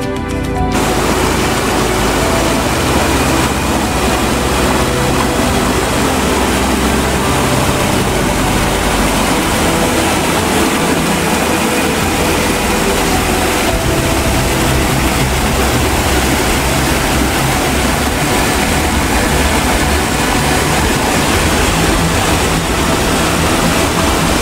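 Steady rushing of a forest stream and waterfall pouring over rocks.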